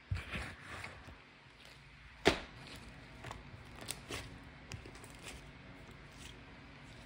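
One sharp knock about two seconds in, with a few fainter clicks after it and a couple of short rustling sounds near the start.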